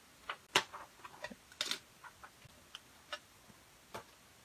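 Crinkles, clicks and taps as a plastic laminator carrier sheet is peeled open and gold transfer foil is handled, coming irregularly, with a slightly longer rustle about a second and a half in.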